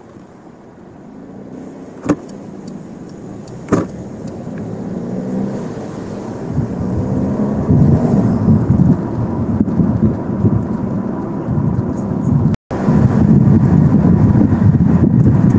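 Porsche 911 GTS Cabriolet driving with the roof down: wind rush and buffeting mixed with road and engine noise, building steadily as it picks up speed and then staying loud. Two sharp clicks come in the first four seconds, and the sound breaks off for a moment near the end.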